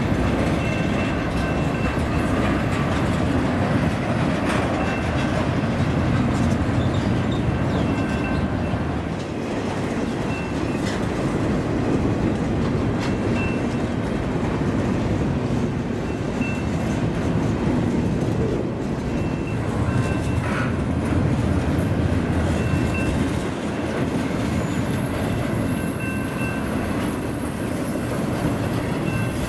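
Double-stack intermodal freight train passing: the steady rumble and rattle of its loaded container well cars rolling over the rails.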